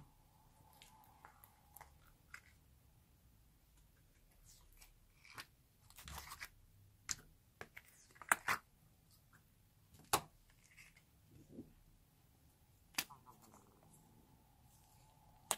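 Slime being peeled out of a clear plastic tub, with soft sticky crackles and a few sharp clicks as the tub is handled. Near the end, small plastic slime pots are opened.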